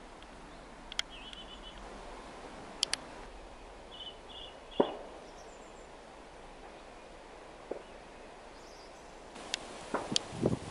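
Outdoor ambience: a steady hiss with a few short, high bird chirps, several sharp clicks, and a louder knock about halfway. Near the end come several more clicks and low knocks close together.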